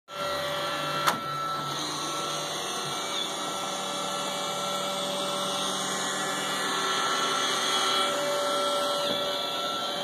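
iRobot Roomba robot vacuum running on carpet: a steady whir from its motor and brushes, with a sharp click about a second in.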